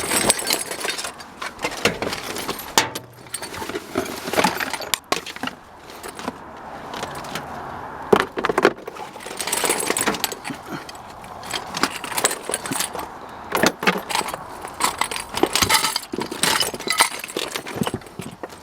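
Scrap and debris being rummaged through and handled: irregular metallic clinks, rattles and rustling.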